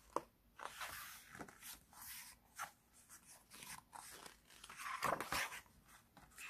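Paper pages of a hardcover picture book turned by hand twice, rustling and brushing with soft clicks; the louder turn comes about five seconds in.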